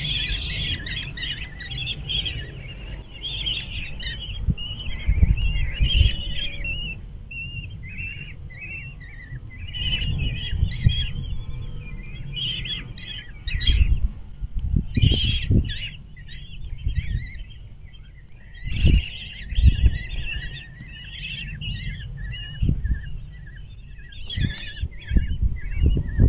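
Common kestrel chicks begging for food in the nest box, giving bursts of rapid, high chirping calls while the female feeds them. Low thumps and rumbles from the birds moving about in the wooden box come in now and then.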